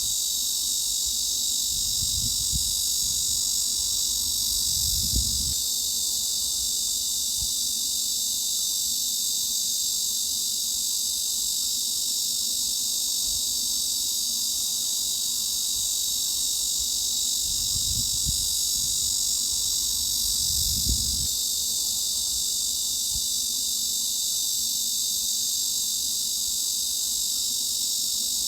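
Cicadas singing in a steady, dense, high-pitched chorus with no pauses. Two pairs of faint low rumbles sit underneath, the second pair about 16 seconds after the first.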